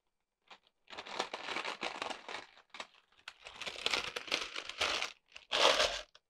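Baking parchment crinkling and rustling as it is peeled off a freshly baked paska loaf, in irregular bursts, with a louder rustle near the end.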